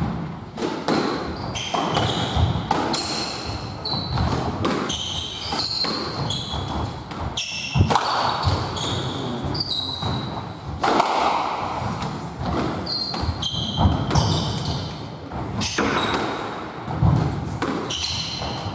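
Squash rally: the ball is struck by rackets and cracks off the walls many times, while the players' court shoes squeak in short high chirps on the wooden floor.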